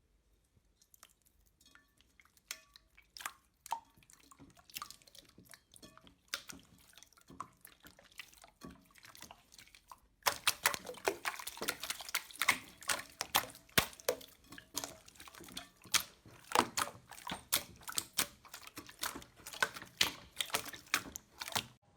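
Slime being squeezed and pressed, giving wet, sticky clicks and pops at an irregular pace. The clicking is faint and sparse at first, then from about halfway it turns suddenly much louder and denser.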